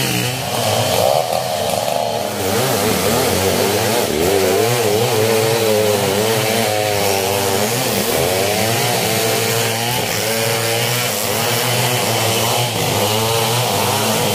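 Two-stroke chainsaw running, its engine speed rising and falling repeatedly as it is throttled up and eased off.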